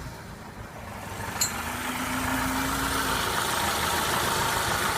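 BMW E21 engine running, growing louder about a second and a half in and then holding steady, with one sharp click just before. The engine has a high-pitched ticking noise that the owner hears most at lower revs.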